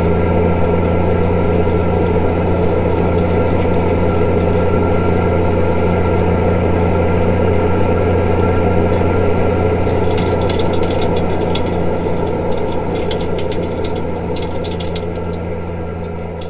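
Straight-piped Nissan TD42 4.2-litre six-cylinder diesel running at a steady speed with a deep, even drone, with light sharp clicks about two-thirds of the way in. The sound fades away near the end.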